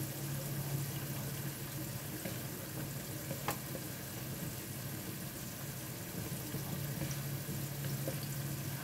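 Flour-coated chicken pieces deep-frying in oil in a wok, a steady sizzle, in the first of two fryings. A steady low hum runs underneath, and there is a single sharp click about three and a half seconds in.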